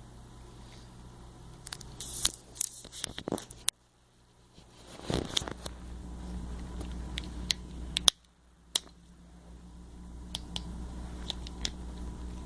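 Handling noise: scattered sharp clicks and short scrapes of small plastic parts and a tool being handled, over a steady low hum, with the sound cutting out abruptly twice.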